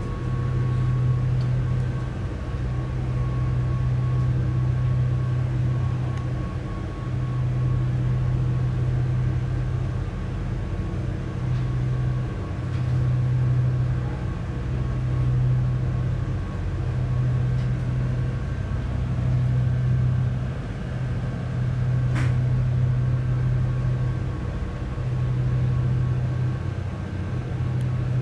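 Low engine drone of a high-speed passenger ferry heard inside its cabin, a steady hum with a few faint higher tones that swells and fades every couple of seconds.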